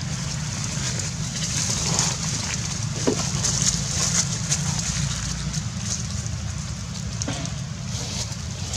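Crackling rustle of dry leaf litter with scattered small clicks as macaques move about close by, over a steady low rumble.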